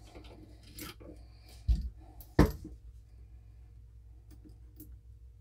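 Small metal clicks and taps from handling the hammer and mainspring parts of a stainless Ruger Redhawk revolver during reassembly, with a dull thump about one and a half seconds in and a sharp metallic click just after it.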